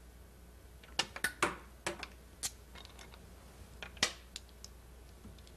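Go stones set down and picked up on a board as a line of play is laid out: about ten sharp, irregular clicks, the clearest about a second in, near the middle and about four seconds in.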